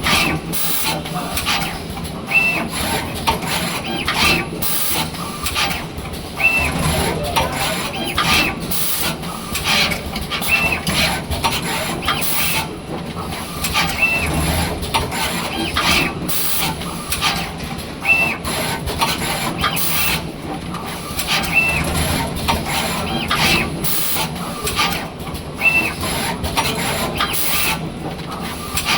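Automatic wire soldering machine working through its cycle: repeated short air hisses and mechanical clicks, with a short high beep about every two seconds.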